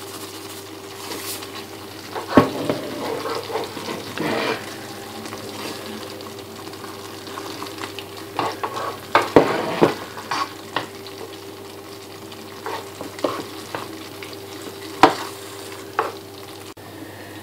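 A metal spoon stirring a thick, simmering tomato-cream sauce in a frying pan, with scrapes and scattered knocks of the spoon against the pan over a low bubbling sizzle. A faint steady hum runs underneath.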